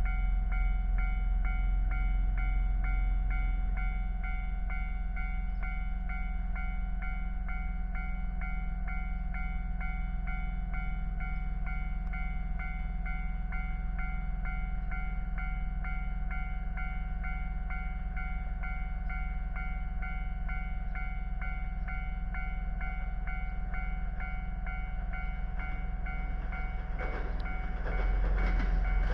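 Japanese level-crossing warning bell ringing in a steady, rapid repeated clang over a low constant rumble. Near the end a JR West 227 series electric train begins passing through the crossing, its noise swelling and getting louder.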